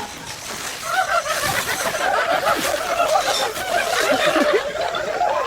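Rapid, high-pitched giggling voice, starting about a second in.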